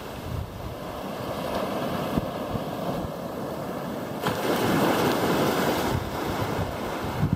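Small ocean waves breaking and washing up on a sandy beach, with wind buffeting the microphone in low rumbles. The wash swells louder about four seconds in as a wave runs up the sand.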